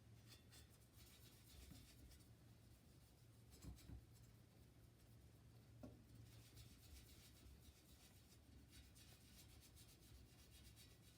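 Near silence with a steady low hum, faint intermittent scratching or rubbing, and a few light knocks about four and six seconds in.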